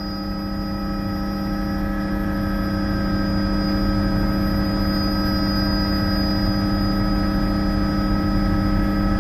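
Bell 206B JetRanger III helicopter in flight, heard from inside the cabin: a steady whine of several tones from the turbine and gearbox over a low rotor rumble. It grows louder over the first few seconds.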